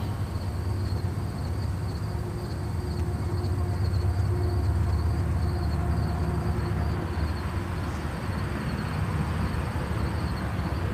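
Low rumble of passing motor traffic, swelling for a few seconds in the middle and then easing, with a faint steady high insect trill.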